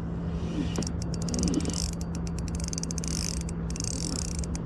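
Spinning reel being wound in against a hooked bream, giving runs of fast mechanical clicking in several bursts, over a steady low hum and rumble.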